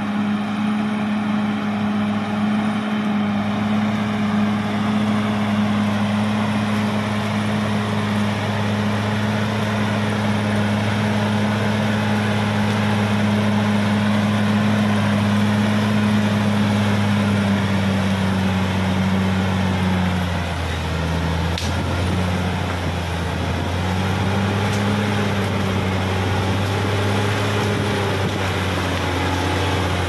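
Caterpillar D6R XL bulldozer's diesel engine running steadily as the dozer pushes earth and brush with its blade. The engine note dips and wavers about two-thirds of the way in, then carries on.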